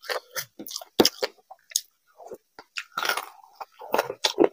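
Close-miked chewing of a mouthful of khichdi eaten by hand, with wet lip smacks and quick mouth clicks coming irregularly and a short lull about two seconds in.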